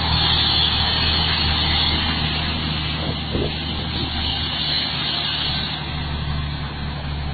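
Volvo FH 540 truck's diesel engine running under heavy load as it hauls a loaded trailer up a steep dirt grade, a steady low drone that fades slightly toward the end.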